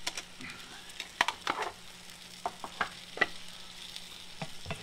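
Scattered clicks and scrapes of utensils: a metal fork scraping gravy out of a plastic container, then a wooden spatula stirring in a cast iron skillet. Under them, a faint sizzle of the gravy, onions, carrots and roast beef heating in the pan.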